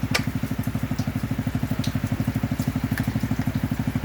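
A machine running steadily with a fast pulsing hum, about fifteen pulses a second, with a few sharp clicks over it.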